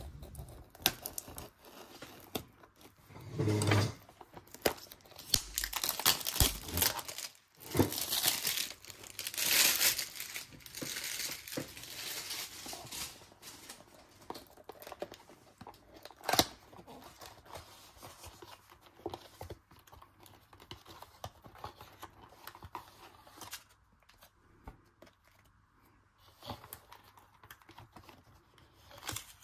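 Packaging being torn open and crinkled by hand, in irregular bursts that are densest from about six to thirteen seconds in, with a few sharp clicks and knocks of items handled on a table.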